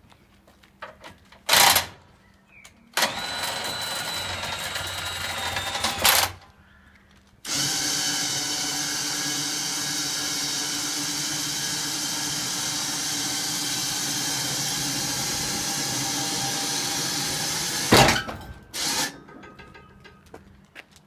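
Small electric motor running steadily in two stretches, first about three seconds, starting with a rising whine, then about ten seconds. Loud clunks come before the first stretch and right after the second.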